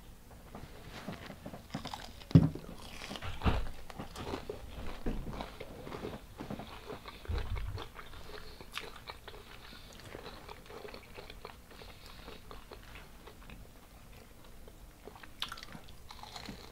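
Crunchy biting and chewing of a deep-fried shrimp coated in hot Cheetos, with sharp crunches loudest in the first few seconds. A dull thump comes about seven seconds in.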